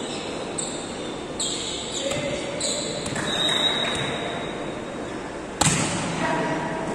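Volleyball being struck during rally play, echoing in a hall: a few lighter sharp hits, then the loudest, a sharp smack about five and a half seconds in, over players' and spectators' voices.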